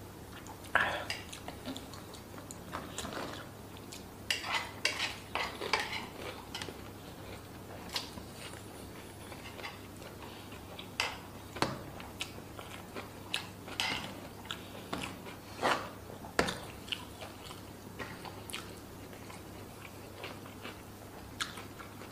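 Eating by hand from a serving tray: scattered short clicks and scrapes of fingers gathering rice against the tray, mixed with chewing and mouth sounds. A faint steady low hum runs underneath.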